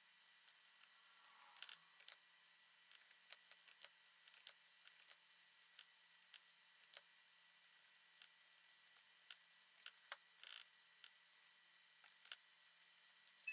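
Faint, irregular clicking of a computer mouse and keyboard during CAD drafting, with a short burst of clicks about ten and a half seconds in.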